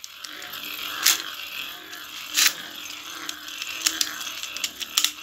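Beyblade Burst spinning tops whirring and grinding across a glass tabletop, with about four sharp clacks of collisions.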